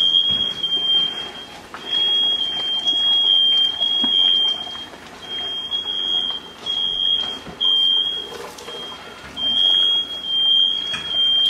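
Smoke alarm sounding: a single high-pitched beep that comes in runs with short breaks.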